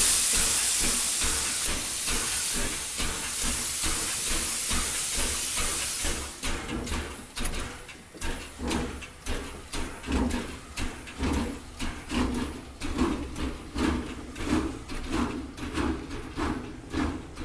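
Steam locomotive letting off a loud hiss of steam, which dies away about six seconds in. Its exhaust beats then follow, about two a second, as it pulls away.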